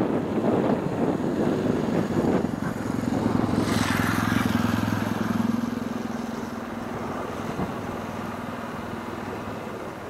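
Gusty wind buffeting the microphone, then the ANA Boeing 767-300's jet engines on its landing rollout. A steady low drone is joined about four seconds in by a rush of engine noise that falls in pitch and fades over the next couple of seconds.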